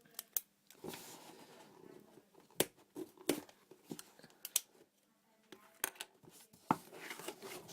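A small shipping box being opened by hand: several sharp clicks and snaps, with rustling of the packaging in between.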